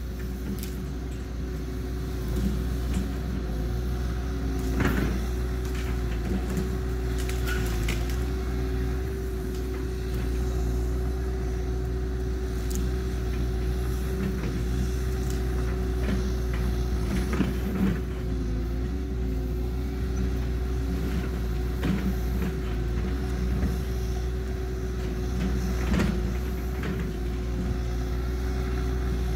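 Cat 314 tracked excavator running under load, its diesel engine and hydraulics making a steady drone with a constant whine, while it pushes over and breaks up trees: scattered sharp cracks and snaps of wood.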